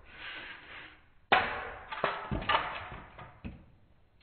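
Sharp knocks and rattling handling noises around a wooden model railroad bench, as someone reaches under it after a fallen locomotive. The loudest knock comes about a second and a half in, followed by several smaller knocks and rattles.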